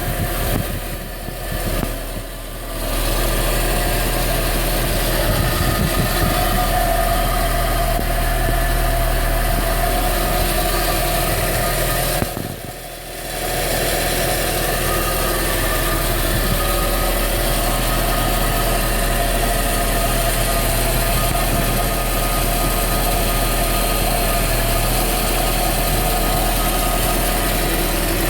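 Audi A4 B5's 1.8-litre ADR four-cylinder engine idling steadily with a persistent tone over its hum, a sound the owner takes for a fault. The sound briefly drops away about a second in and again about halfway through.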